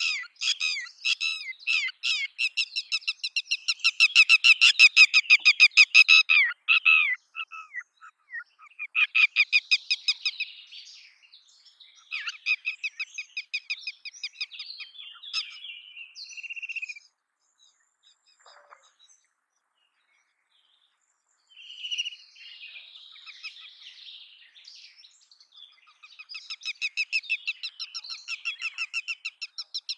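Red-wattled lapwing calling: runs of rapid, sharp repeated notes, loudest in the first few seconds. The calls break off for a few seconds just past the middle, then resume as a fast run near the end.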